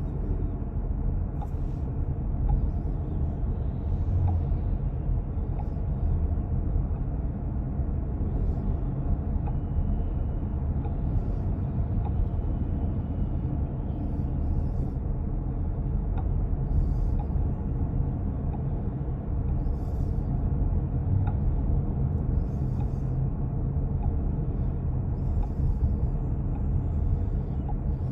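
2023 Chrysler Pacifica 2WD minivan driving, with a steady low road and drivetrain rumble. Faint clicks come at intervals of a few seconds as the gas pedal is gradually pressed or let off: the sign of a loose axle nut that won't stay tight.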